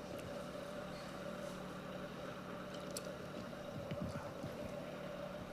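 Quiet pause with a steady hum, a few faint clicks and a soft low sound about four seconds in, as a man stops to take a drink.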